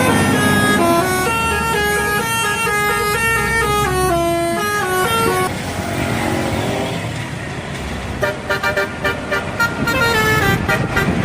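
Indonesian bus 'telolet' musical horn playing a stepping tune of several notes for about five seconds. After a break with engine and traffic noise, another telolet horn starts about eight seconds in, playing fast, quickly repeated notes.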